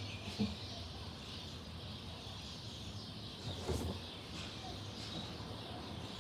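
Faint outdoor background with a steady low hum, and a few soft knocks from a phone being handled about half a second in and again just before four seconds in.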